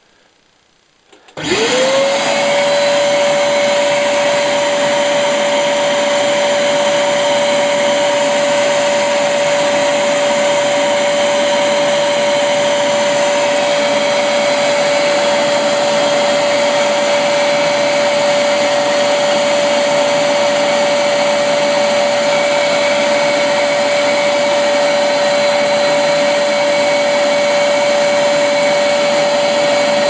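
Workshop vacuum cleaner switched on about a second and a half in: its motor spins up quickly to a steady high whine and then runs on loudly and evenly, pulling air through a water-bath prefilter.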